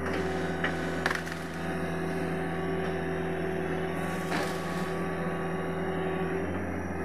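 Sany SY75C excavator's diesel engine running steadily, with keranji wood cracking and splintering a few times, the longest crack about four seconds in.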